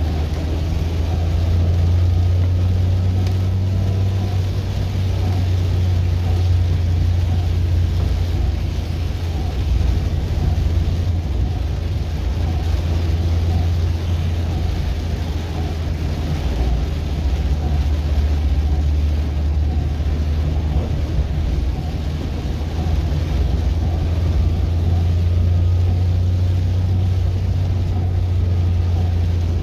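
Inside a moving car on a wet road: a steady low engine and road drone with the hiss of tyres and rain.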